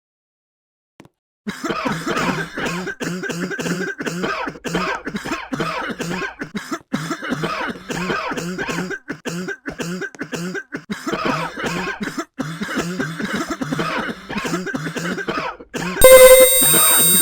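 A person coughing over and over in a rapid, unbroken fit, starting about a second and a half in and running for some fourteen seconds. Near the end a sudden, much louder burst of distorted electronic noise cuts in.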